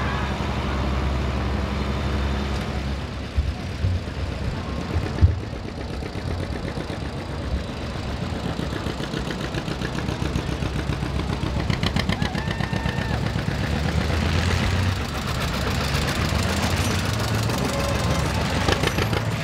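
Tractor engines running as a parade of farm tractors moves past, an International Harvester among them. From about halfway, a John Deere tractor pulling a hay wagon passes close with a slow, even engine beat. A few sharp knocks come about three to five seconds in.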